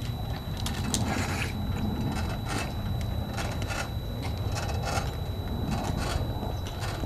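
Shoes of a group of pallbearers scuffing and shuffling on concrete as they walk with a casket, about two scuffs a second, over a steady low rumble.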